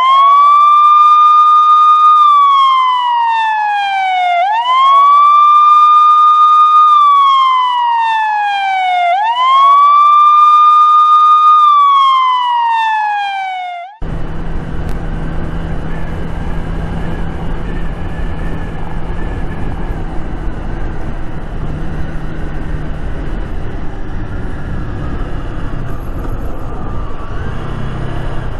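A police-style siren wailing in three slow cycles, each rising quickly, holding, then falling, cut off suddenly about halfway through. Then a Honda Rebel 300's single-cylinder engine running steadily under wind noise while riding.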